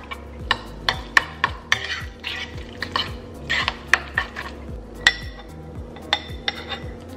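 Metal spoon stirring a thick chili seasoning paste in a ceramic bowl, with irregular clinks and scrapes against the bowl's sides and a brighter ringing clink about five seconds in. It is the seasoning for green onion kimchi being mixed together.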